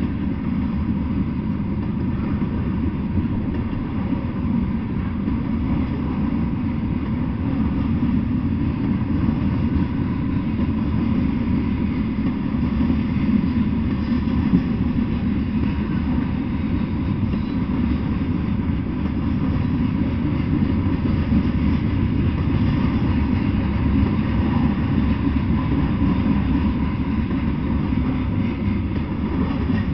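Freight train of covered hopper cars rolling past at close range, a steady low rumble that stays even throughout.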